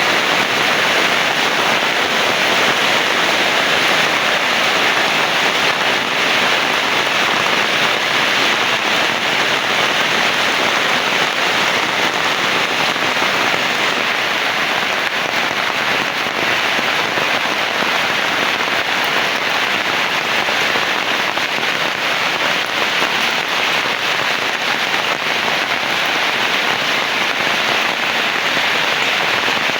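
Heavy rain falling steadily: a dense, unbroken hiss with a fine crackle of drops hitting surfaces.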